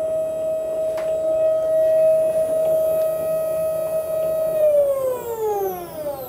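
Stepper motors of a homemade GoTo drive on a 12-inch SkyWatcher Dobsonian telescope slewing: a steady whine that falls in pitch about four and a half seconds in as the motor slows to a stop. A short click sounds about a second in.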